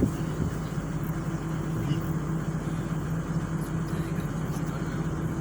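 Vehicle engine running at a steady speed, a low even hum.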